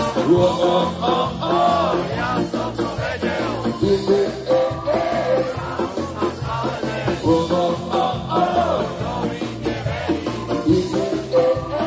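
Live ska band playing on stage: a lead voice singing over amplified electric guitars and a steady low bass line.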